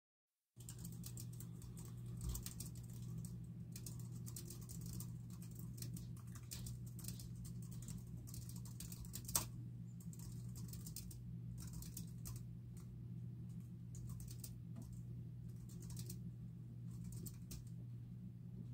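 Fingers typing on a small keyboard: soft key clicks in uneven runs and pauses, with one sharper click about halfway through, over a low steady hum.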